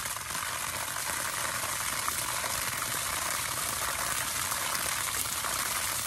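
Well water gushing steadily from a garden hose and splashing onto grass and weeds.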